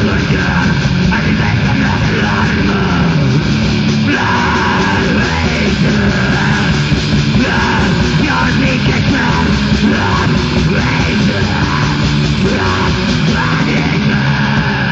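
Heavy metal band playing in a rehearsal-room tape recording: distorted electric guitar and drums, dense and loud.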